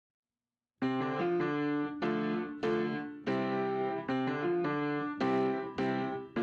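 Background piano music starts suddenly less than a second in, after dead silence: a run of struck notes and chords, each fading before the next.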